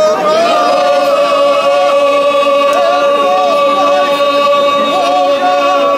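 A group singing unaccompanied, one voice moving above others that hold a single long note.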